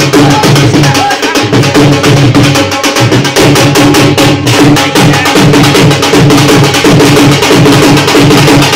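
Dhol, the two-headed barrel drum, beaten with sticks in a fast, steady rhythm.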